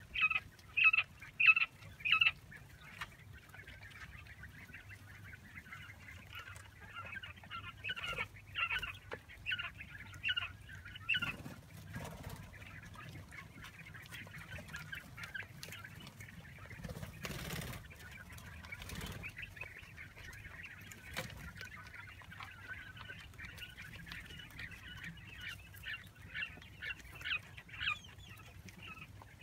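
A flock of month-old Japanese quail chicks peeping and chirping: short, high calls repeated many times over, loudest in a quick series at the start and busier again near the end.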